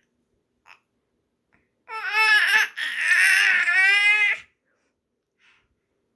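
A 7-month-old baby letting out shrill, pterodactyl-like squeals: two drawn-out, wavering high-pitched screeches, the first starting about two seconds in and the second ending about four and a half seconds in.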